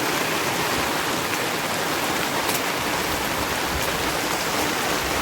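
Heavy rain falling steadily: a dense, even hiss with a few sharp drop taps.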